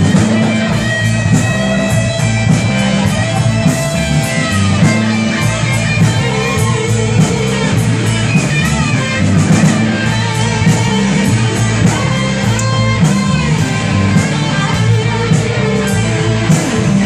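Live rock band playing a section without vocals: electric guitar to the fore over bass guitar and drums.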